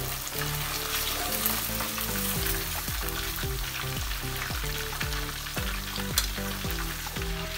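Hot oil sizzling and bubbling steadily in a kadai as pieces of fried fish are lifted out of it with a wire skimmer, just after the flame has been turned off.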